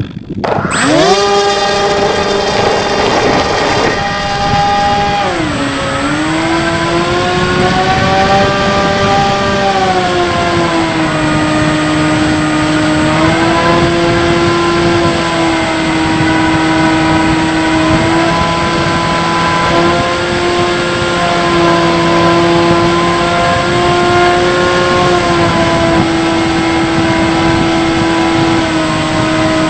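Electric motor and propeller of a Bix3 RC plane, heard from on board: it throttles up sharply about half a second in to a loud whine for takeoff, then keeps running at high throttle. Its pitch dips and rises again around five seconds in, and steps down a little a few times as the throttle is eased during the climb.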